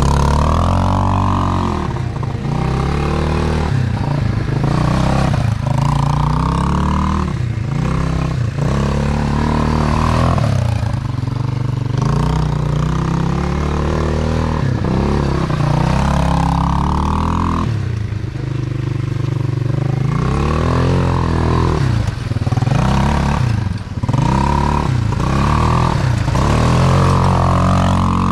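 Quad bike engine revving up and down again and again as the ATV is ridden in tight turns, its pitch rising and falling every few seconds.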